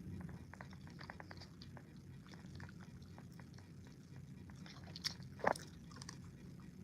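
A person chewing a jelly bean close to the microphone, faint wet mouth clicks, with two sharper clicks about five seconds in.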